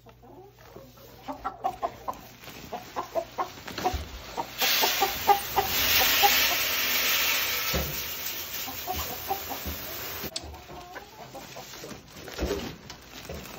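Chickens clucking repeatedly. A sack of whole oats poured into a barrel: a loud, even rush of grain that starts about four and a half seconds in and cuts off about ten seconds in.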